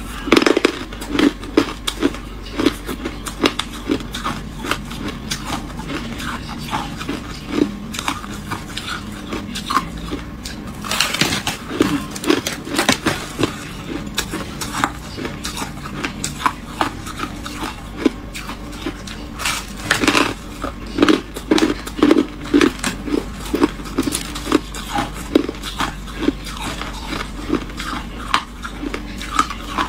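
Freezer frost being bitten and chewed: irregular crisp crunching and crackling of packed ice crystals, with two heavier runs of crunching about a third and two-thirds of the way through.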